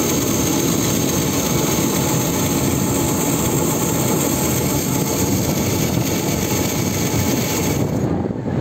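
A car ferry's diesel engines run steadily under load as it moves off the berth, together with churning propeller wash. The higher hiss drops away near the end.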